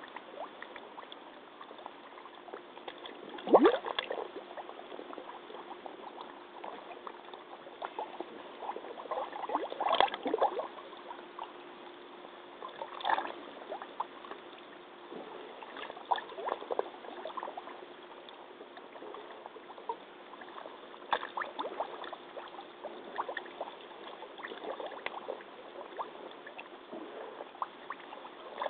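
Muddy water sloshing and gurgling around rubber hip waders as the wearer shifts in a deep mud pool, in irregular splashes, the loudest about three and a half seconds in and again around ten seconds.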